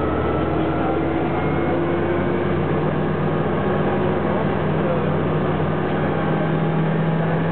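Loud, steady engine and road noise heard inside a SITA coach bus travelling at speed, the engine's hum changing pitch a few seconds in.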